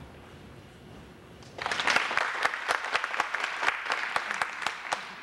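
A small audience clapping. The clapping starts suddenly about one and a half seconds in, with individual claps distinct, and dies away near the end.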